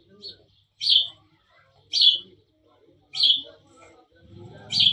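A bird chirping over and over, one short high call about every second and a bit.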